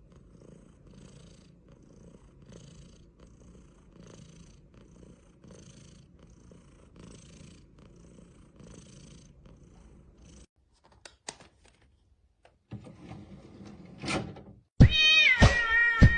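A cat purring steadily, with a breath about every second and a half. The purring cuts off about ten seconds in, a few soft clicks follow, and loud music starts near the end.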